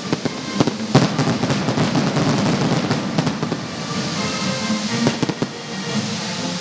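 Fireworks going off: sharp bangs, the loudest about a second in, then dense crackling for a couple of seconds, and a few more bangs around five seconds in. Music plays underneath.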